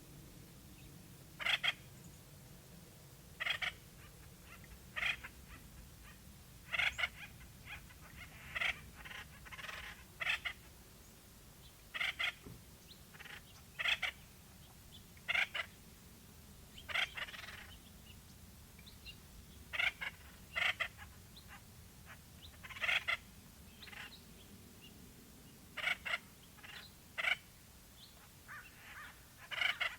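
Acorn woodpeckers calling: short, harsh calls repeated every second or two, some in quick pairs or short runs.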